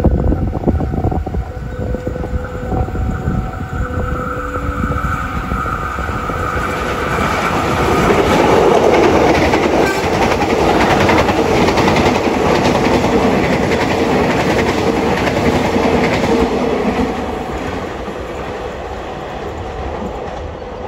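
KRL Commuter Line electric multiple-unit train approaching and passing close by, wheels clicking rapidly over the rails. It grows loud about a third of the way in, stays loud for about ten seconds as the cars go past, then fades.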